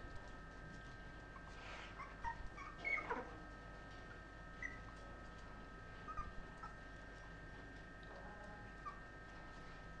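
Young puppies whimpering and squeaking in short high cries, a cluster about two to three seconds in and scattered single ones later, faint, over a steady high tone.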